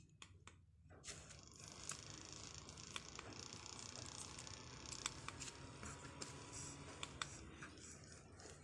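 Aken King rechargeable mini fan starting about a second in and running with a faint steady whir, with a few light clicks.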